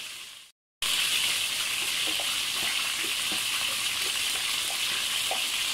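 Chicken pieces sizzling in hot ghee in a pan, a steady frying hiss with faint small crackles. The sound drops out to silence for a moment just under a second in, then carries on unchanged.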